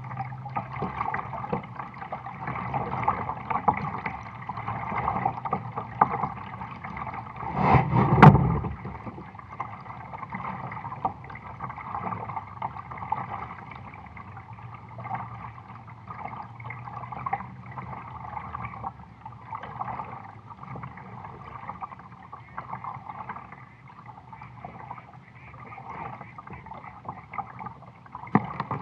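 Water gurgling and lapping against the hull of a sit-on-top kayak as it moves along the river, with one louder thump about eight seconds in.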